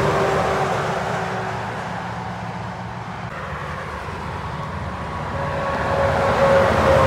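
Semi-trailer trucks passing at highway speed on a motorway. One fades away over the first few seconds. A second approaches and goes by near the end, with a whine that drops in pitch as it passes.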